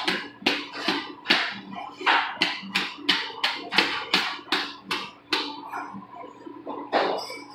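Long knife making rhythmic cutting strokes through the skin and flesh along a bluefin tuna's back, about two to three sharp strokes a second. The strokes stop about five and a half seconds in, and one more comes about a second later.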